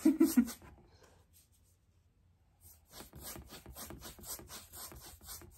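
Paintbrush bristles scrubbing back and forth across a canvas, laying on a thin, wet acrylic glaze: a run of quick, soft, repeated strokes that starts about halfway through, after a brief pause.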